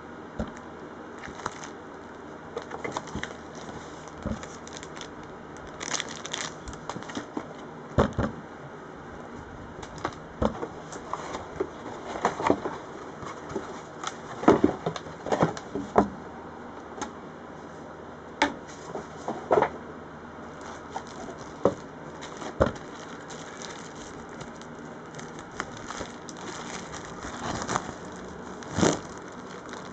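Packaging handled by hand: a plastic bubble-wrap bag crinkling and cardboard box flaps rustling, with scattered irregular clicks, taps and light knocks over a steady background hiss.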